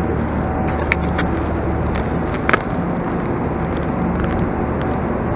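Steady low drone of a standing diesel passenger train's engine running at idle, with a few sharp clicks about one second and two and a half seconds in.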